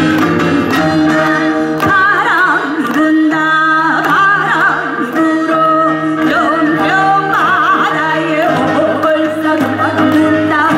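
Korean traditional gugak music: wavering, heavily bent melodic lines over steady held tones, starting abruptly out of silence.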